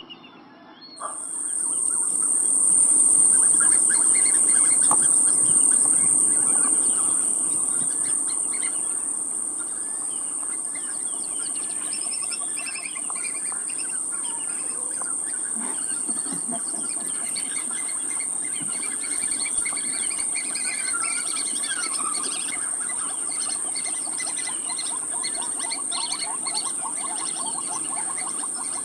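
An insect's steady, high-pitched buzz starts abruptly about a second in and runs on, with birds chirping. Underneath, many small fish thrash and splash in shallow water inside a drawn-in net as they are scooped out by hand.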